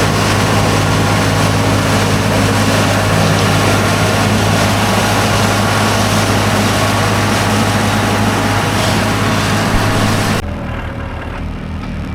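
Farm tractor engine running steadily with a strong low hum. Near the end the sound cuts abruptly to a quieter, duller engine sound.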